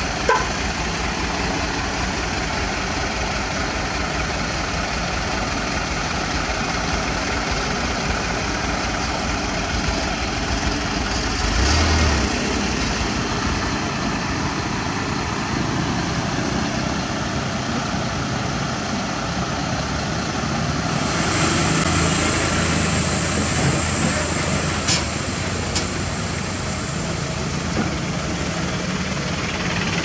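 Heavy diesel truck engines running steadily, with a brief louder low rumble about twelve seconds in.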